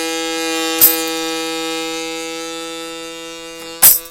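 Harmonica holding one long note that slowly fades, with two beats on a small drum: one about a second in and a louder one near the end.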